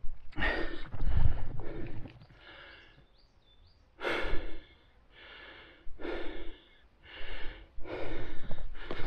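A man breathing hard and fast through the mouth, about one heavy breath every second, out of breath from a steep uphill climb.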